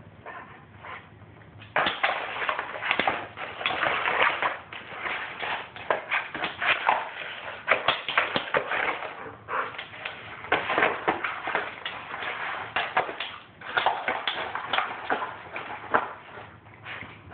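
Huskies chewing and tearing at a taped-up cardboard treat box: a crackly rustling and crunching of cardboard that starts about two seconds in and comes and goes unevenly.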